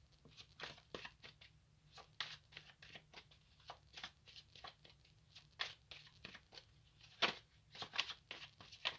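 Tarot cards being shuffled by hand: a quiet, irregular run of soft card slaps and rustles, with a few sharper snaps near the end.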